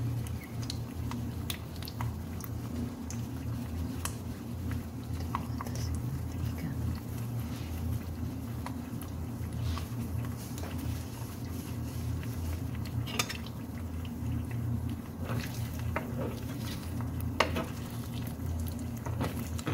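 Scattered light clinks and scrapes of a paper towel and then a spoon against a frying pan on a cooktop, over a steady low hum.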